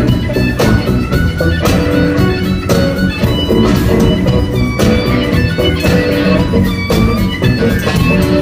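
A live band playing an instrumental passage, with guitar over a steady drum beat and no singing.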